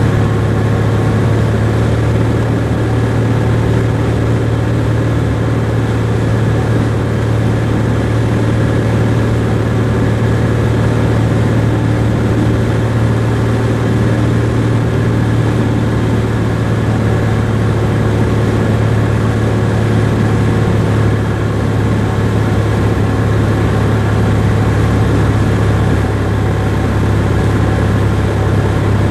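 Cessna R172K Hawk XP's six-cylinder Continental IO-360 engine and propeller running with a steady, unbroken drone.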